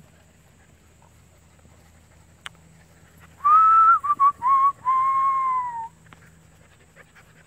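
A person whistling: a first note about three and a half seconds in, three short notes, then one long note that slowly falls.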